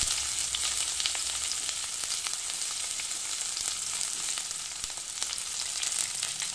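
Sliced onions sizzling in hot coconut oil in a steel kadai: a steady frying hiss with scattered small crackles.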